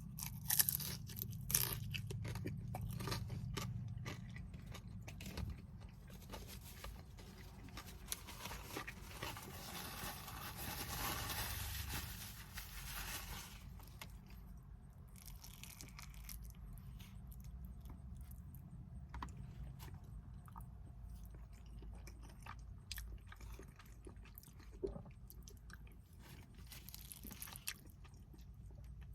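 Close-miked eating: a person biting and chewing food, with crunches and sharp wet mouth clicks. A denser stretch of crackly crunching comes about a third of the way in.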